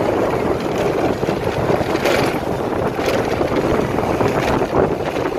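Small motorbike engine running while riding along, with wind rushing over the microphone.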